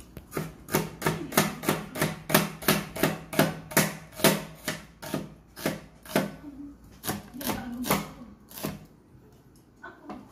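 Meat cleaver chopping an onion on a plastic cutting board: a steady run of sharp knocks, about three to four a second, that stops near the end.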